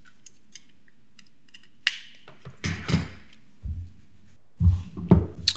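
Faint scattered clicks, then a few short rustling and handling noises and a dull thump from a person at a computer desk, with a brief murmured voice sound near the end.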